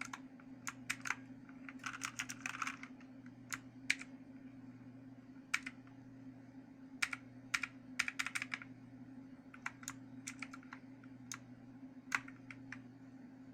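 Motospeed CK888 mechanical keyboard being typed on: irregular key clicks in short quick flurries with pauses between, over a steady low hum.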